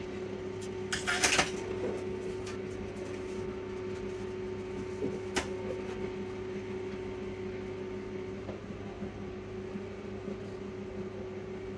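Steady electrical hum from bench equipment, with a few light clicks and taps about a second in and once more about five seconds in.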